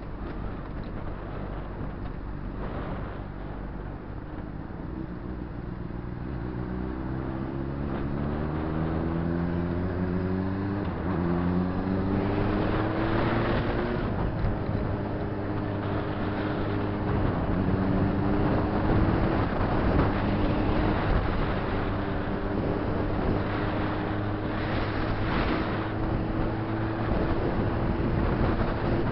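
Honda CBR600RR's inline-four engine accelerating through several gears: its pitch climbs and drops back at each upshift a few seconds in. It then cruises steadily with a slowly rising note.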